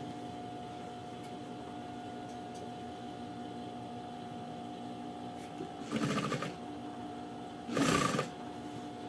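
Electric sewing machine stitching in two short runs, about six and eight seconds in, over a steady low hum.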